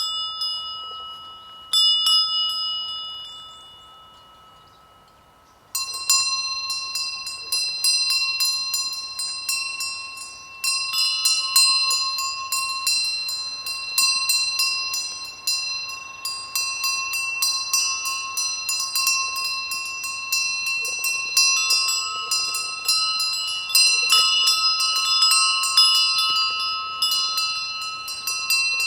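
Bells on grazing sheep clanking irregularly as the animals move: a couple of clanks near the start, a lull, then several bells of different pitches clanking almost continuously from about six seconds in.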